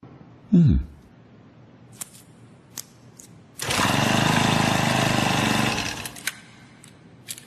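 A short, loud falling-pitch swoop, a few sharp clicks, then about two and a half seconds of loud, rapid mechanical rattling like a small motor, ending with more clicks.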